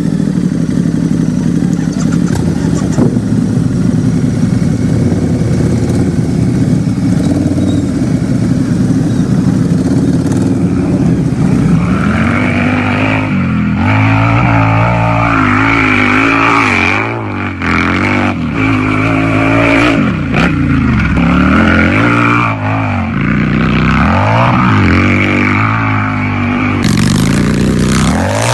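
Harley-Davidson motorcycle's V-twin engine running at a steady idle, then revved again and again from about twelve seconds in, the pitch climbing and dropping with each blip of the throttle.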